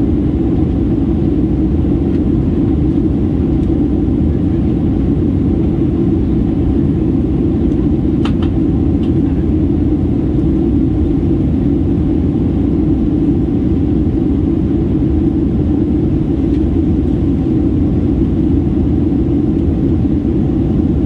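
Steady low drone of a Boeing 737-800's cabin in descent: its CFM56-7B engines and airflow heard from inside the cabin, with no change in level.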